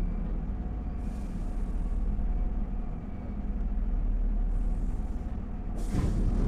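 Keihan 2200-series electric train heard from inside the car, a steady low rumble of running as it slows into a station stop. A sudden loud hiss of air near the end as the train comes to a stand.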